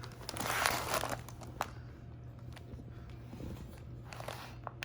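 Packing material crinkling and rustling as it is handled, in two spells about half a second in and near the end, with a few light clicks between.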